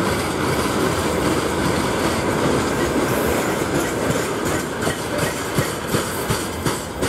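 Freight wagons rolling past at close range: a steady rumble of steel wheels on rail, with the clickety-clack of wheelsets crossing rail joints standing out as separate clicks about twice a second in the second half.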